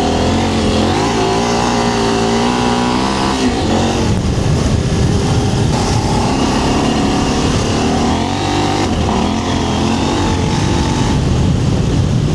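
KTM 790 Adventure R's parallel-twin engine accelerating hard on loose gravel. Its pitch climbs and drops back at each upshift, about three and a half seconds in and again later, with the rear tyre spinning up on the loose surface.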